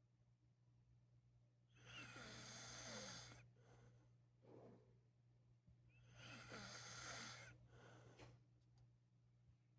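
A sleeping man snoring: two long snoring breaths about four seconds apart, each followed by a shorter, quieter breath.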